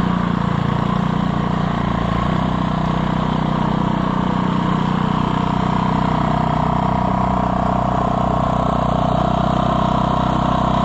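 Single-stage 1979 Montgomery Ward snowblower, built by Gilson, with its 3.5 hp Briggs & Stratton engine running steadily at working speed; the engine note shifts slightly about two seconds in.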